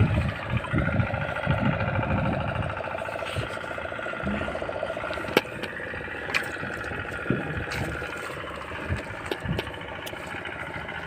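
A boat engine running steadily, with low thumps in the first couple of seconds and a few sharp knocks later on.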